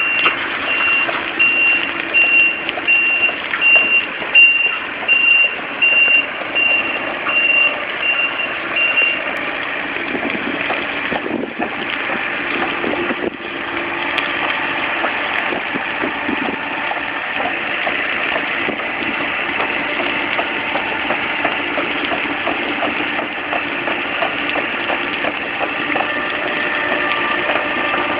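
Sumitomo crawler excavator running and moving on its tracks. For the first nine seconds or so a single high warning beep repeats quickly over the machine.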